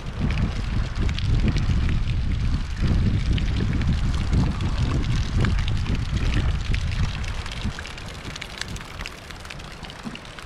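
Wind buffeting the microphone outdoors, a gusty low rumble that is loudest for most of the stretch and eases near the end.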